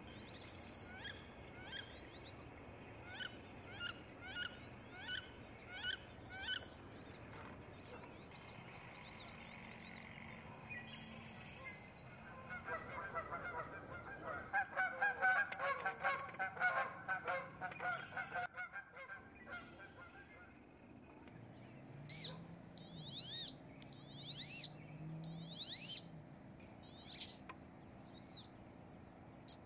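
Wood ducks calling: a series of short high squealing whistles, then a louder, denser burst of calling about halfway through, then drawn-out squeals that rise and fall near the end.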